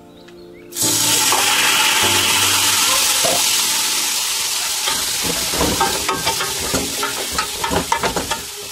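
Diced raw pork dropped into hot oil in a stainless steel pot, bursting into a loud sizzle under a second in and frying steadily. In the second half a spatula stirs the pieces, adding quick scraping clicks against the pot.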